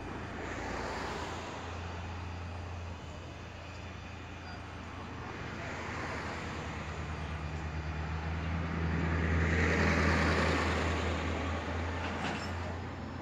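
Road traffic passing a roadside stop: several vehicles go by one after another, each swelling and fading, the loudest about ten seconds in, over a steady low engine hum.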